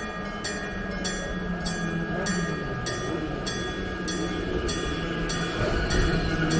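Level-crossing warning bell, a real struck bell rather than an electronic tone, ringing a little under two strikes a second. Under it a train rumbles, growing louder toward the end.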